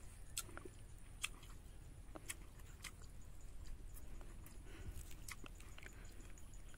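Faint chewing of food eaten by hand, with scattered soft clicks of fingers working food on a steel plate.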